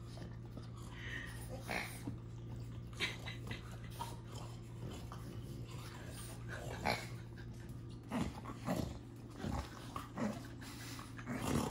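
French Bulldog puppy mouthing and tugging at a plush pig toy, making short, scattered dog noises every second or two.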